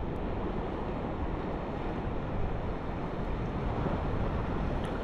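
Steady rush of wind on the microphone with small waves washing in shallow sea water.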